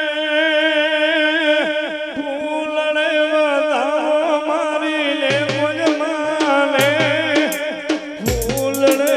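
Devotional folk music: a wavering melody of long held notes, with drum strokes coming in about five seconds in and deep bass beats and sharp strikes near the end.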